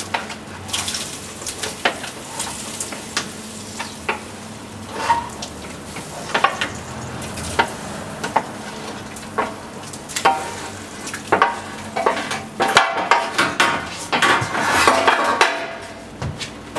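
Diced root vegetables scraped with a spoon off a stainless-steel tray into a tilting kettle of stew: irregular metal scrapes and clinks with the vegetables dropping in, getting busier from about ten seconds in.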